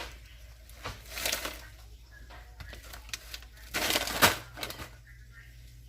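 Kitchen handling noises: rustling and clatter as items are moved about, with a scattering of small clicks and a sharp knock about four seconds in.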